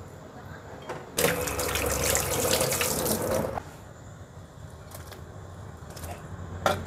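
Kitchen tap turned on and running into the sink for about two and a half seconds, then shut off, followed by a few light knocks.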